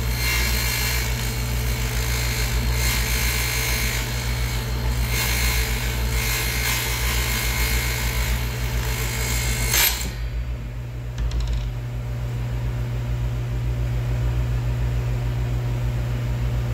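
Table saw blade cutting through a clear plastic tube as the tube is turned against it, a harsh high-pitched cutting noise over the saw's motor hum. The cutting stops abruptly about ten seconds in, when the tube is cut through, and the saw runs on freely with its hum steady.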